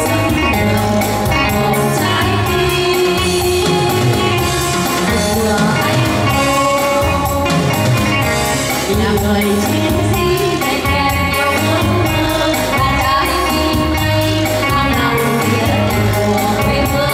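Female vocal trio singing into handheld microphones over instrumental accompaniment with a steady beat.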